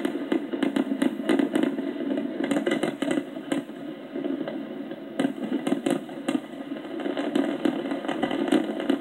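Fireworks finale: many shells bursting at once in dense, continuous crackling and popping, easing slightly for a moment about four seconds in.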